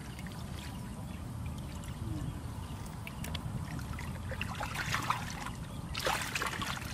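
Hands splashing and sloshing in shallow muddy water while feeling along the bottom of a water-filled pit for fish, with scattered small splashes and two louder bursts of splashing about five and six seconds in.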